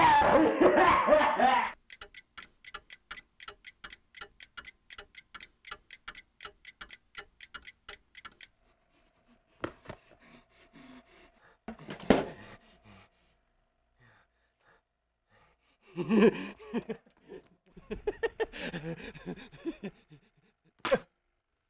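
A man laughing maniacally: a loud outburst, then a long run of evenly paced laughs about four a second. A single sharp hit comes about twelve seconds in, more laughing follows near the end, and there is a sharp click just before it closes.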